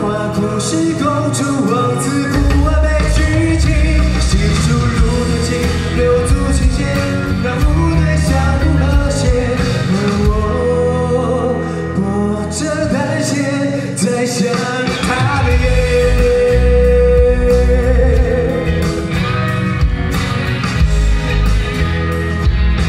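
A singer singing live into a handheld microphone over a loud rock-style backing track with a steady beat.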